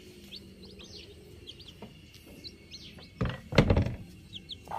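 Day-old country chicken (naatu kozhi) chicks peeping: a steady run of short, high, falling peeps. A loud thump comes a little after three seconds in.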